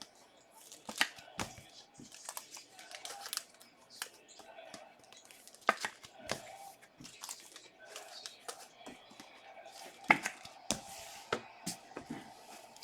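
Trading card packs being torn open and the cards handled: wrapper crinkling and tearing with scattered sharp clicks and snaps, the loudest about one, six and ten seconds in.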